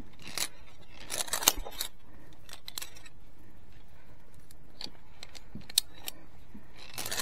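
Metal clinks and jangles of via ferrata carabiners and climbing gear knocking against the steel safety cable: a cluster about a second in, a single sharp click near six seconds, and another cluster near the end.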